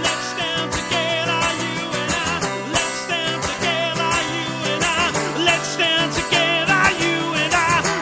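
Live performance of a guitar-accompanied rock song, with long wavering sung notes without clear words over steady guitar.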